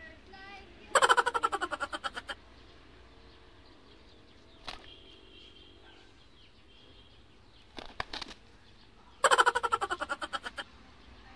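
Rooster flapping its wings in two loud bursts, each about a dozen quick beats that fade over a second and a half: one about a second in and one near the end. A few faint knocks and chirps come in between.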